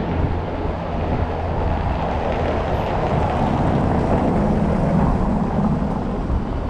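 A motor vehicle passing: a steady mix of engine and tyre noise that swells to a peak about five seconds in, then eases a little.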